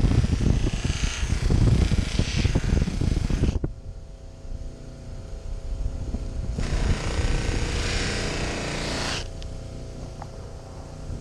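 Electric bench grinder running, a knife blade pressed against the spinning wheel in two spells of harsh grinding: the first cuts off abruptly a few seconds in, the second starts just past halfway and lasts about two and a half seconds. Between them the motor hums steadily.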